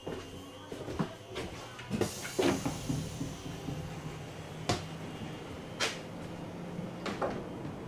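Inside a moving electric commuter train: a steady running hum under a scattering of sharp knocks and clattering, with a hissy rattle about two seconds in.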